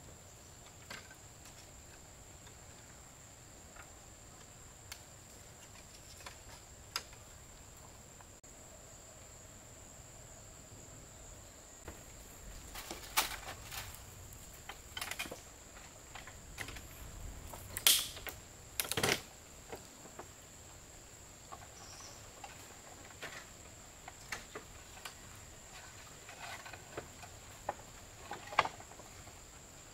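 A steady, high-pitched insect drone, with scattered clicks and knocks; a cluster of sharper knocks comes about halfway through, and another near the end.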